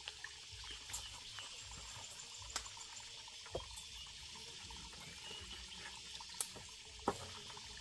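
Steady hiss like running or trickling water, with a few light knocks on a bamboo-log floor, the sharpest near the end.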